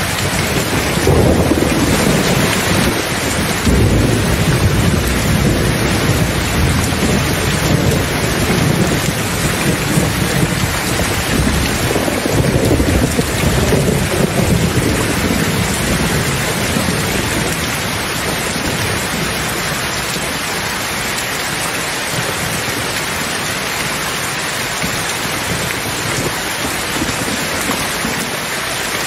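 Heavy rain falling steadily, with a long roll of thunder rumbling under it that dies away a little past the middle.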